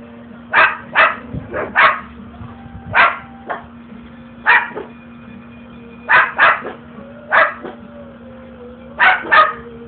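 Umbrella cockatoo imitating a dog's bark: about a dozen short, sharp barks, many in quick pairs.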